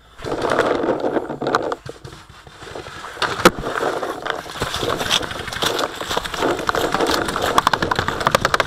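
Running footsteps crunching and rustling through dry leaves and brush. Near the end comes a quick string of sharp pops: paintball markers firing.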